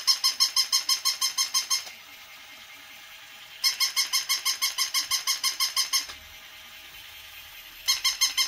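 Battery-operated plush puppy toy giving high-pitched electronic yaps in fast runs of about eight a second. A run stops about two seconds in, another plays from about three and a half to six seconds, and a third starts near the end.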